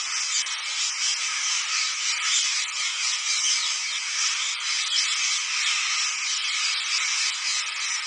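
A large flock of rose-ringed parakeets calling together: a dense, steady, high-pitched din of many overlapping shrill calls.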